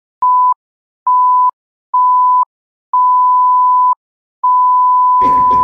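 Film-leader countdown beep sound effect: five single-pitch high beeps about a second apart, each longer than the last, the final one a long held tone. Voices come in under the held tone near the end.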